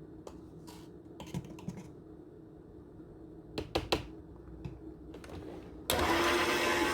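Light clicks and taps as baking powder is added to the basbousa batter. Near the end, an electric mixer switches on suddenly and runs with a steady hum.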